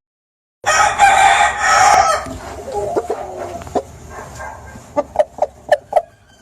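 Aseel rooster crowing: one loud crow of about a second and a half, followed near the end by a quick run of about five short clucks.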